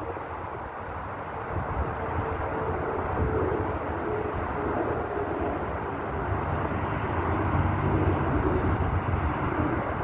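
Wind buffeting the microphone over the faint, wavering drone of an electric RC model plane, a Durafly T-28 Trojan, flying at a distance; the drone grows a little louder toward the end.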